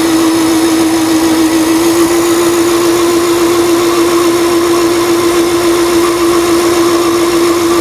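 Singer sewing machine motor running at a steady speed while winding a bobbin. It makes a continuous hum with one strong, unchanging pitch.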